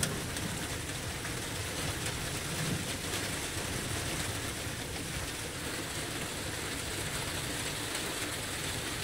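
A steady, even hiss like falling rain, with no distinct events in it.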